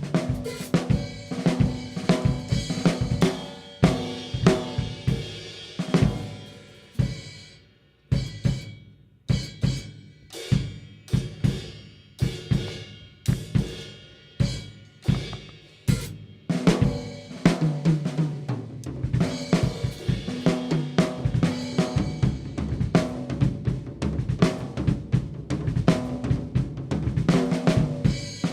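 Pearl Vision birch drum kit played through close mics: a busy pattern of kick, snare, hi-hat and cymbals, which dies away about seven seconds in, gives way to single ringing strokes about twice a second, then returns to full-kit playing about seventeen seconds in.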